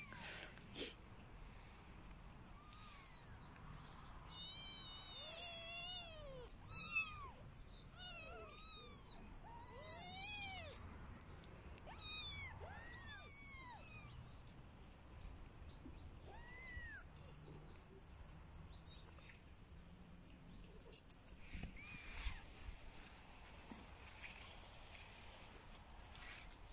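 Young kittens mewing, about a dozen short high-pitched calls, each rising and then falling in pitch, crowded together in the first half with a couple more scattered later.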